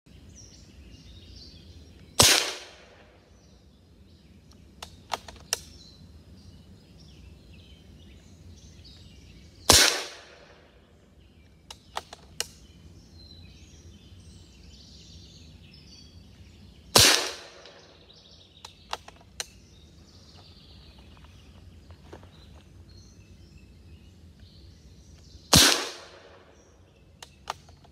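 Benjamin Bulldog .357 big-bore PCP air rifle firing four shots, about seven to eight seconds apart, each a sharp crack with a short echo. A few seconds after each shot come two or three quick metallic clicks of the side-lever action being cycled to chamber the next slug. Faint birds and outdoor noise lie underneath.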